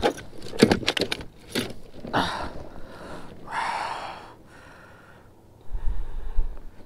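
Quick clicks and knocks as a striped bass is handled and lifted out of a mesh landing net. Two longer breathy rushes follow, and a low rumble comes near the end.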